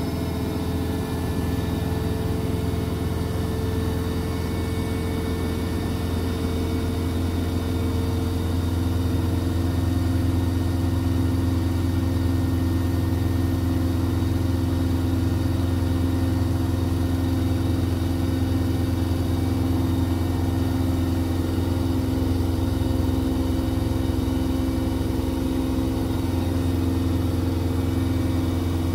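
Beko front-loading washing machine running with water in its turning drum: a steady low motor hum with a few steady higher tones, growing slightly louder about eight seconds in.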